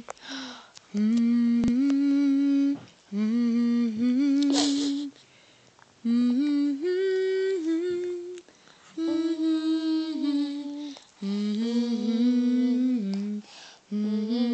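A woman humming a slow tune in held notes that step up and down, in phrases of about two seconds broken by short pauses for breath.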